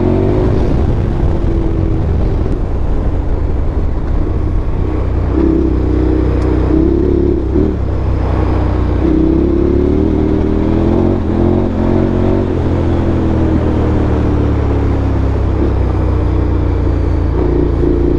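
KTM 1290 Super Adventure's V-twin engine running under way, its revs rising and falling again and again with the throttle, over a steady low rumble.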